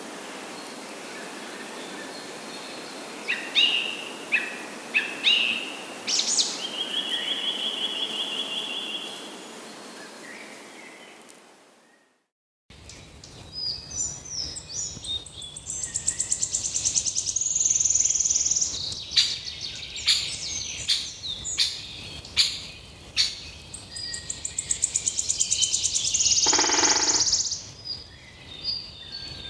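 Forest birds singing and calling: scattered chirps and a rapid trill, fading out about twelve seconds in, then, after a brief silence, a denser chorus of chirps, whistles and sharp calls.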